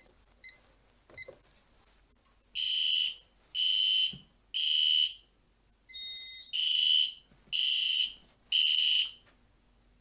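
A few short electronic beeps from the fire alarm control panel's keys, then the Edwards Genesis horn strobe's horn sounding in the temporal-three evacuation pattern: three blasts, a pause, and three more, starting about two and a half seconds in.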